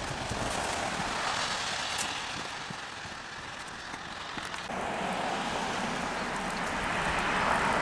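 Meltwater falling and dripping from snow-laden trees as a steady rain-like patter, its sound changing abruptly a little past halfway.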